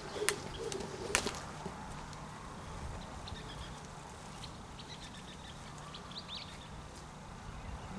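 A jump rope slapping the dirt as a few sharp clicks in the first second and a half, then it stops. After that a faint steady background with a few faint bird chirps in the middle.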